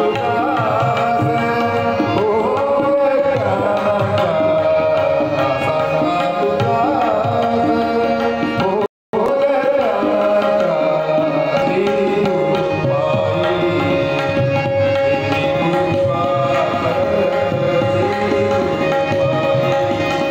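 Devotional bhajan music: tabla drumming under a harmonium, with a note held steady beneath a wavering melody. The sound cuts out briefly about nine seconds in.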